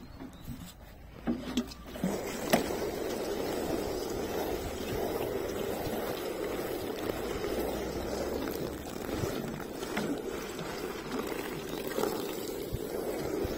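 Water spraying from a plastic watering can's rose onto flat cardboard sheets, a steady splashing that begins about two seconds in, after a few light knocks.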